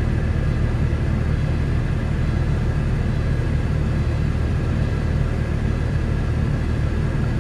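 Steady rumble of a Volvo V70 idling, heard inside the cabin, with the ventilation fan blowing through the dash vents while the air conditioning runs and cools the air.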